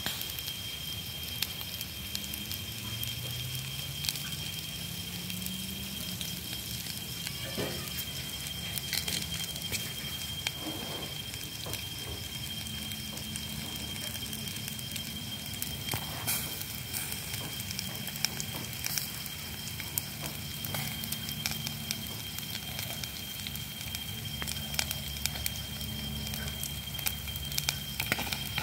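Charcoal fire crackling, with many short sharp pops, under catfish grilling on bamboo skewers. A steady high-pitched whine runs underneath.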